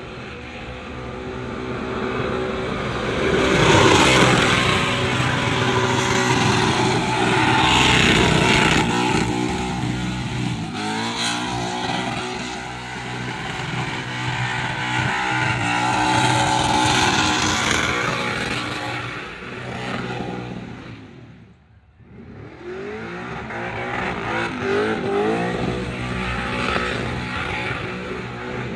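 Burnout car engine held at high revs with the tyres spinning and squealing. About 22 s in the engine drops off almost to nothing, then the revs climb again.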